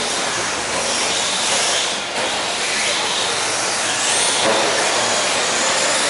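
Electric RC stadium trucks racing on an indoor dirt track: a steady hiss of motors and tyres, with high-pitched whines that rise and fall as the drivers work the throttle.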